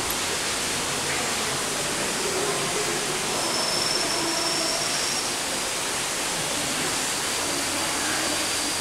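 Steady rushing background noise of an indoor rainforest hall, with a faint thin high tone coming and going.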